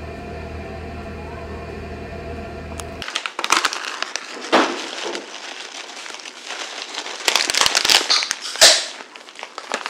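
Electric oven running with a steady hum for about three seconds, then crinkling and crackling of baking parchment and a plastic bag as shredded cheese is shaken out over the roasted vegetables, with a few sharp crackles.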